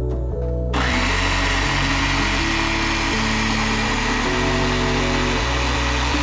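Background music, joined about a second in by a steady whirring hiss from the toy RC Mustang's working smoke-exhaust unit as it puffs smoke.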